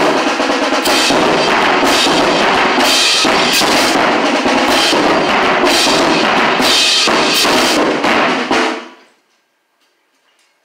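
Marching band playing loudly, drums leading with brass. The band stops sharply about eight and a half seconds in.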